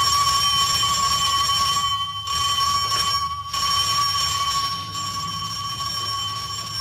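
Electric bell with a metal gong ringing continuously, its clapper buzzing against the gong in one steady high ring, with a few brief dips along the way.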